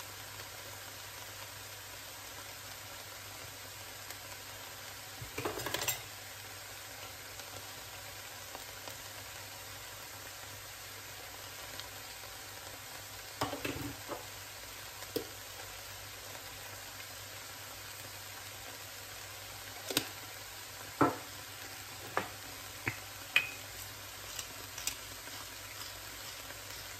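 Chopped vegetables frying in a non-stick pan, a steady gentle sizzle. Scattered sharp knocks and taps of utensils and containers come in the second half, several close together near the end.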